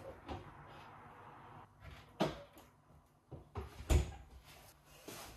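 A few separate knocks and clunks from kitchen things being handled, like a cupboard or drawer being opened and shut. The loudest, with a low thud, comes about four seconds in, after a sharper knock a little past two seconds.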